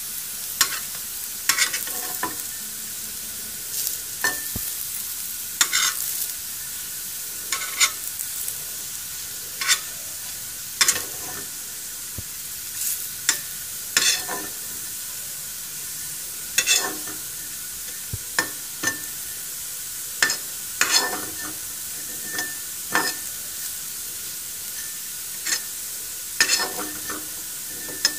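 Rice-flour-coated vegetable slices sizzling steadily in a few drops of oil on a flat pan, with a spatula scraping and tapping against the pan at irregular intervals, about one stroke a second, as the slices are turned while they roast.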